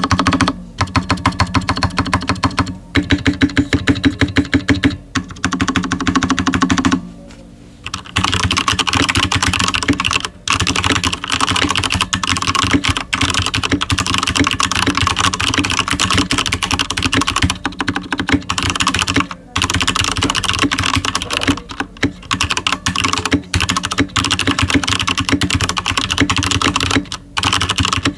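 Corsair K70 RGB TKL gaming keyboard with stock Cherry MX Speed Silver linear switches and lubed stock stabilizers, typed on quickly: a steady stream of keystroke clacks broken by a few brief pauses, the longest about seven seconds in.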